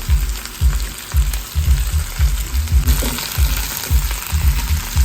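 Food sizzling in a hot pan, an even crackling hiss, over background music with a steady bass beat.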